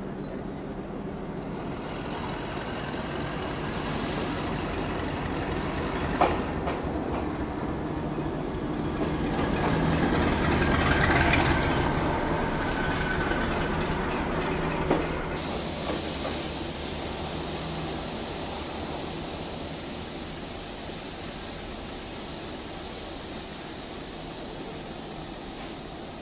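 M9-class diesel locomotive running slowly past and underneath. Its engine hum grows louder to a peak about halfway through, then fades as it moves away, with two sharp clanks, the first about six seconds in and the second about fifteen seconds in.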